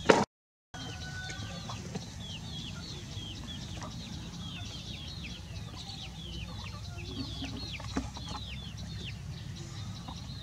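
A brood of chicks peeping: many short, high peeps, each falling in pitch, overlapping throughout over a low steady background hum. A loud knock and a split-second dropout come right at the start.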